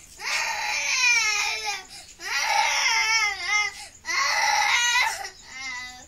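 Baby crying in three long, wavering wails with short breaths between them, then a shorter, weaker cry near the end.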